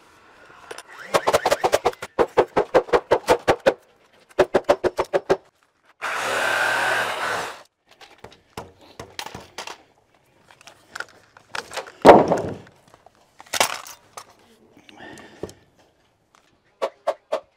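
Carpentry on a wood wall frame. Two runs of fast, even knocks at about eight a second come first, then a short burst of noise about six seconds in, then scattered knocks, the loudest a heavy thunk on the lumber about twelve seconds in.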